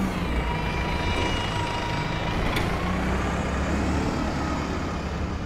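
Street traffic dominated by a heavy road vehicle's engine running steadily. A thin high whine fades out about three seconds in, and there is a single sharp click near the middle.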